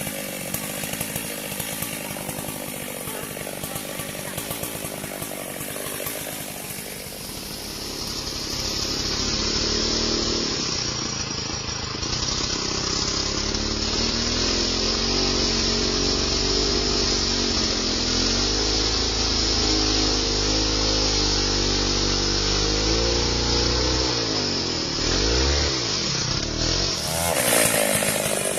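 Stihl MS 382 two-stroke chainsaw cutting wood, its engine speed rising and falling with the load. Near the end the revs drop sharply and pick back up.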